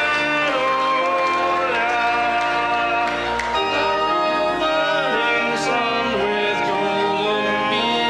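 Men singing a hymn-like melody over steady instrumental accompaniment.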